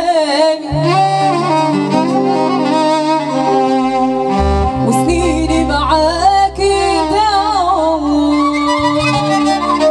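Moroccan chaabi song performed live: a woman sings an ornamented, wavering melody over an amplified band of keyboards, violin and drums, with a bass line that steps between sustained notes.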